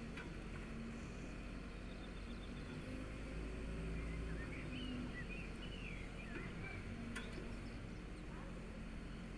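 Steady low engine rumble from heavy machinery, swelling slightly around three to four seconds in. Bird chirps over it in the middle.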